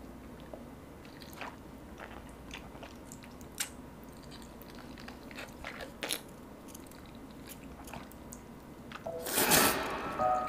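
Soft eating sounds as jjajangmyeon noodles are drawn into the mouth and chewed: scattered small clicks and sucks. Near the end a loud rushing burst comes in, with music tones starting.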